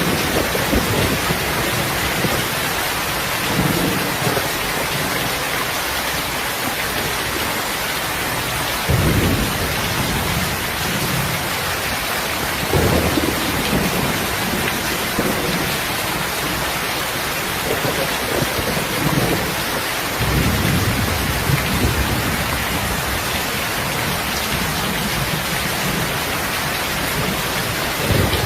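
Steady, dense rain hiss, with a few brief low rumbles spaced several seconds apart.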